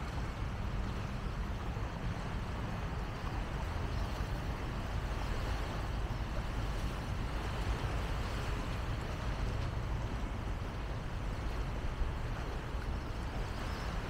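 Steady outdoor background noise: a low rumble with an even hiss over it and no distinct events.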